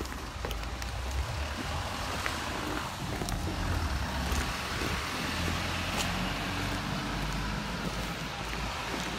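Road traffic passing on the street beside the pavement: a steady rush of car tyres and engines that swells about three seconds in, over a low rumble.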